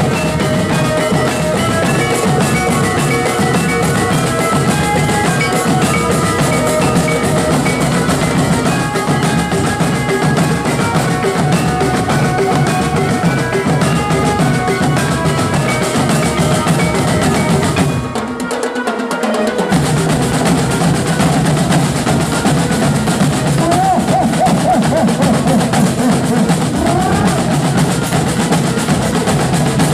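A marching drum band playing: rows of marching bass drums and snare drums beaten together in a fast, dense rhythm, with high melodic notes sounding over the drums in the first half. The low drums cut out for about a second and a half around 18 seconds in, then resume.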